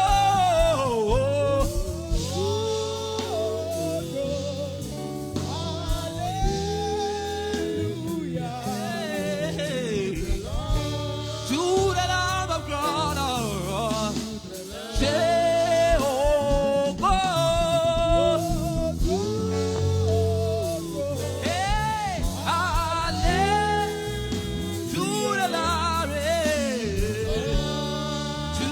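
Gospel worship song: a singer's long, gliding vocal lines over steady instrumental accompaniment.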